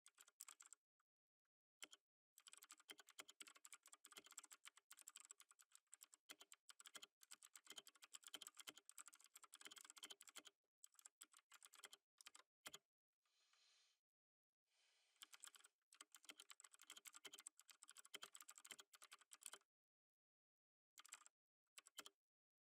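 Soft computer-keyboard typing in runs of several seconds, with short pauses between them. It thins to one brief burst near the end.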